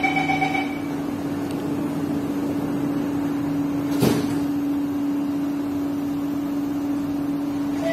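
Inside a stationary MRT train car: the door-closing chime ends within the first second, then a steady hum from the train. A single knock about four seconds in comes as the doors shut.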